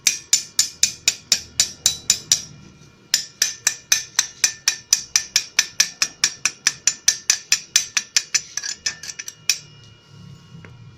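Chipping hammer striking a freshly stick-welded bead in quick, even blows, about five a second, knocking off the slag. The blows pause briefly between two and three seconds in and stop about nine and a half seconds in.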